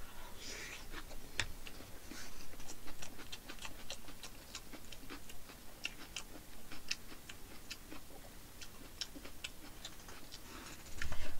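Close-miked chewing of a large mouthful of food in black bean sauce: many short, irregular wet mouth clicks and smacks.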